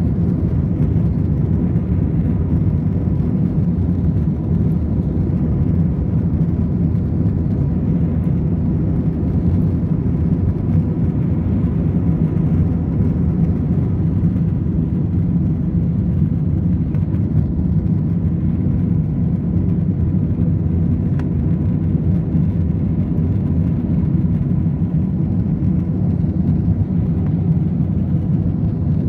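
Airbus A321 taking off, heard from inside the cabin: a steady low roar of the engines at takeoff thrust and the wheels on the runway. It carries on unchanged through liftoff and the early climb, with a faint steady hum over it.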